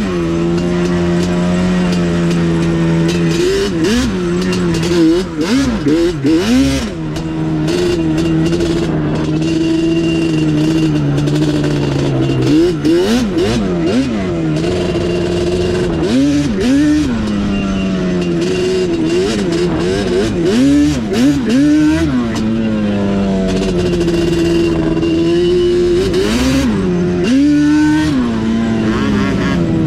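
Yamaha ATV engine heard from the rider's seat, repeatedly revving up and dropping back as the throttle is worked, with a few steady held-throttle stretches between the revs.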